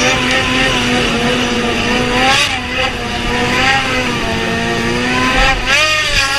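Snowmobile engine held at high revs while the sled skims across open water, its pitch swinging up and down, most sharply near the end, over a steady rushing hiss.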